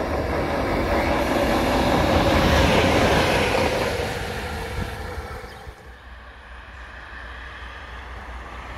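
Electric locomotive passing on the near track: its rush builds to loudest about two to three seconds in, then fades away.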